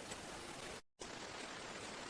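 Steady outdoor noise, an even hiss with a few faint ticks, cut off completely for a split second just before a second in.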